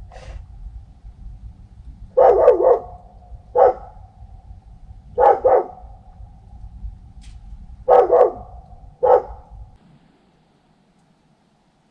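Dog barking in short bouts of one or two barks, five bouts in all, over a low steady hum. The barking and the hum stop just under ten seconds in.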